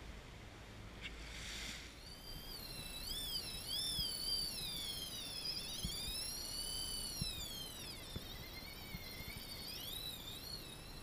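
Fly reel's drag screaming as a hooked albacore tuna runs line off. It starts about two seconds in, and the whine rises and falls in pitch as the run speeds up and slows.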